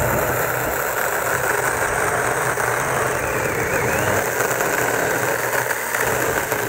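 Mini cordless electric chainsaw running steadily as its chain cuts through a log of firewood, the motor whine mixed with the chain chewing through the wood.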